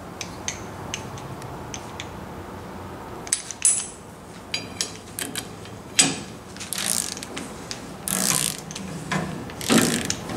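Ratcheting torque wrench clicking as it turns a side bearing adjuster of a Chrysler 9.25 rear axle through the axle tube, to set backlash and side bearing preload. A few slow single clicks at first, then from about six seconds in several short bursts of quick ratcheting.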